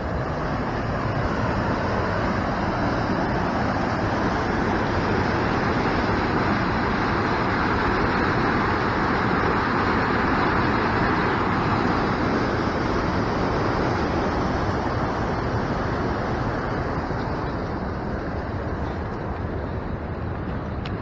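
Rushing water of a waterfall and whitewater creek: a steady rush, a little louder midway and easing off toward the end.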